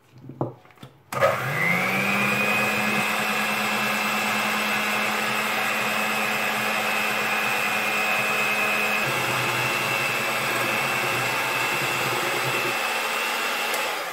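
Electric hand mixer beating eggs and sugar in a glass bowl: a few light knocks, then the motor starts about a second in with a quickly rising whine and runs at a steady pitch, dying away near the end.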